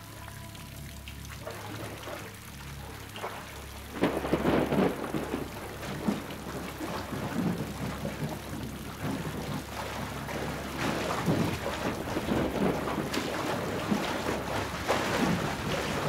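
Heavy rain with thunder rumbling. From about four seconds in, loud irregular splashing as a man wades and thrashes through a creek.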